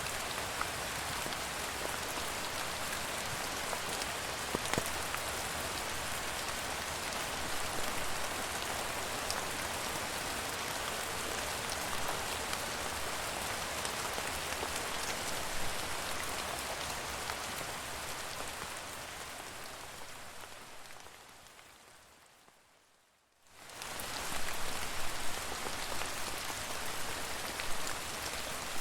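Steady rain falling, a dense hiss with scattered individual drop taps. About three quarters of the way through it fades away to a second of silence, then comes back abruptly and louder, with sharper, more distinct drop hits.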